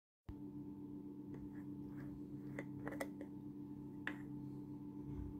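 A steady low hum runs under a few light plastic clicks as the screw cap is taken off a plastic water bottle, then one sharper click as the cap is set down on the table about four seconds in.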